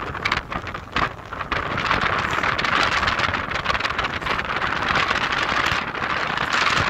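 Strong storm wind from Hurricane Dorian blasting the phone's microphone over rough surf breaking on the beach. It crackles and buffets in the first second and a half, then settles into a steady, heavy rush.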